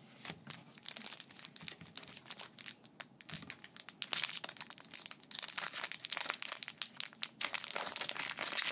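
Foil wrapper of a Japanese Pokémon TCG booster pack crinkling and crackling as hands press and work it, growing louder and denser near the end.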